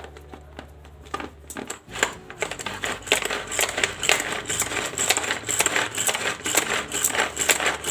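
Plastic pull-cord vegetable chopper pulled again and again, its spinning blades clattering and clicking through onion and cucumber in the bowl. The rattle starts about a second in and grows louder from about two seconds in.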